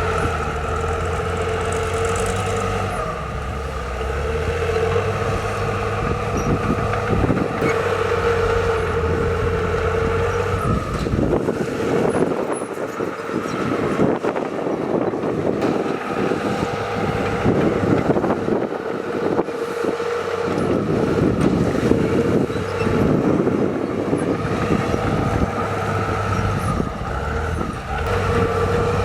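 Heavy diesel earthmoving machinery running with a steady engine drone. For much of the middle the drone gives way to a rough, rushing noise, and the engine tone returns near the end.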